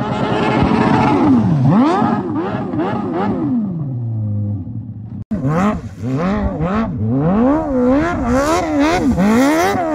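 A 600cc go-kart engine revving hard, its pitch swinging up and down again and again as the rear tyres spin in a smoky burnout. It cuts off abruptly about five seconds in, then comes back with quicker rev blips rising to the same high peaks.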